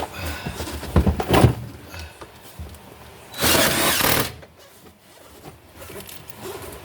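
Clattering and knocks of metal being handled, then a cordless power drill runs for about a second, driving a screw into the sheet-metal patch panel.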